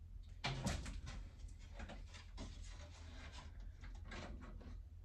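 Handling noise from a VW T3 van's front grille being picked up and brought to the front of the van: light knocks, clicks and scrapes, with a louder knock about half a second in.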